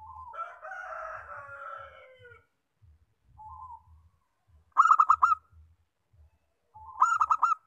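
Zebra dove (perkutut) calling twice, each call a short lead note followed by a quick run of four or five clipped coos, about two seconds apart. A longer, rougher sound fills the first two seconds.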